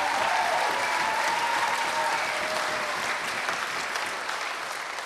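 Audience applauding steadily, the clapping easing off a little toward the end.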